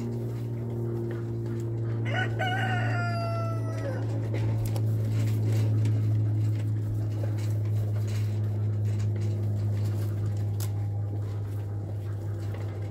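A rooster crows once about two seconds in, a call of nearly two seconds that drops in pitch at its end. A steady low hum runs under it and is the loudest sound throughout.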